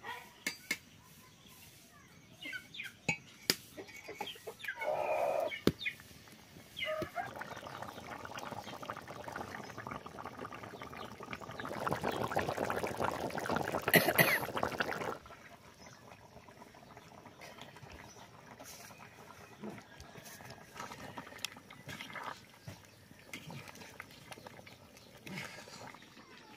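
Goat leg and papaya curry bubbling and spluttering in a wok, loudest about twelve to fifteen seconds in. A few sharp clicks of a stirring spoon against the pan come early on, and chickens cluck in the background.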